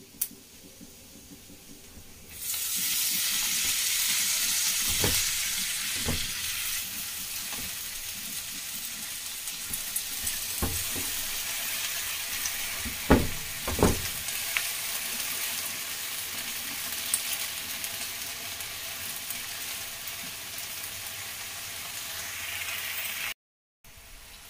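Fresh leafy greens (karmatta bhaji) going into a hot kadhai of oil and fried onion, setting off a loud sizzle about two seconds in that slowly eases off. A few dull knocks sound against the pan as more handfuls go in.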